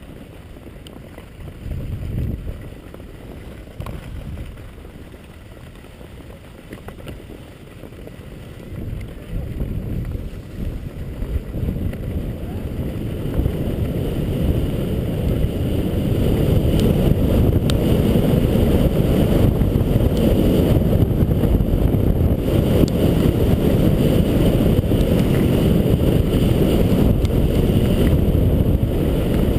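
Wind rumbling on a GoPro action camera's microphone while skiing down a groomed run, with skis sliding over the snow. The rumble grows louder about halfway through and stays loud to the end.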